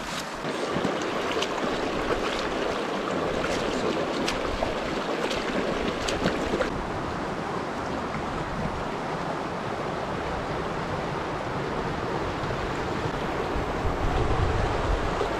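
Shallow mountain river rushing over rocks, a steady wash of water. For the first several seconds, sharp crackles of footsteps through dry brush and twigs sound over it; a low rumble rises near the end.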